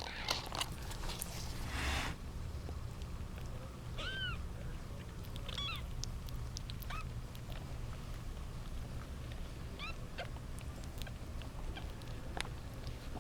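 Young kittens mewing in several short, high, arched squeaks, after a burst of rustling in the first two seconds.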